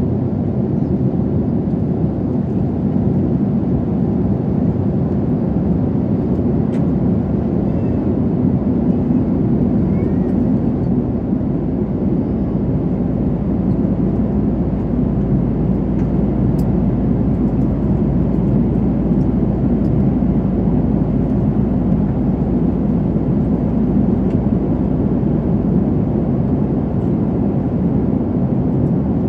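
Steady cabin noise of a jet airliner in cruise, heard at a window seat over the wing: an even, low rush of airflow and engines with no change in level.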